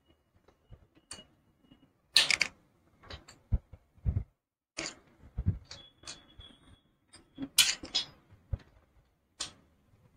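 A hex (Allen) key working in the rocker-block bolts of a Royal Enfield cylinder head as they are tightened by hand: irregular metallic clicks, taps and scrapes, with a brief faint ringing note near the middle.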